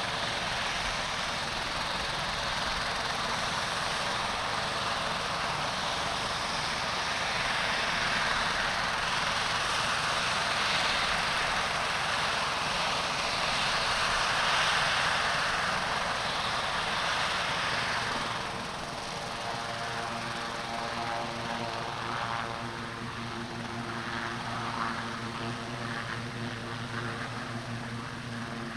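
Sikorsky S-76 air-ambulance helicopter running on the ground with its rotors turning: a steady rush of turbine and rotor noise. About eighteen seconds in it drops a little in loudness, leaving a steadier hum with several held tones.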